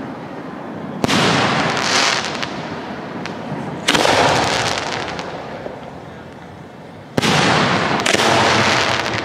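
Display fireworks shells bursting overhead: three sharp bangs, about one, four and seven seconds in, each followed by crackling that slowly fades.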